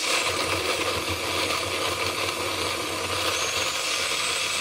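Oster blender with a glass jar running steadily at speed, chopping chunks of fruit into a smoothie.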